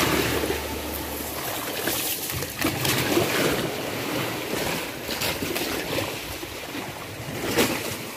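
Sea surf washing on the shore: a steady rushing noise that swells in irregular surges.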